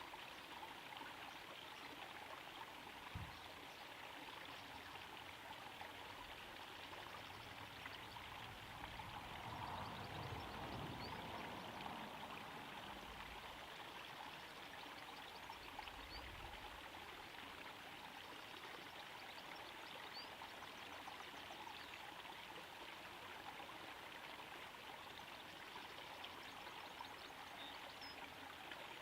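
Small garden-pond waterfall trickling and splashing into the pond: a soft, steady rush of falling water that swells slightly about ten seconds in.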